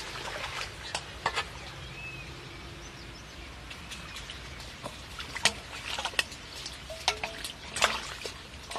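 Steel bowls scooping and splashing muddy water as a shallow ditch is bailed out by hand to expose fish. The splashes and scrapes come irregularly, several of them sharp.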